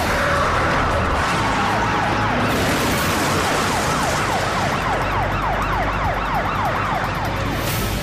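Police car siren going at high speed, switching to a fast yelp of quick repeated sweeps in the second half, over the steady rumble of the engine and tyres.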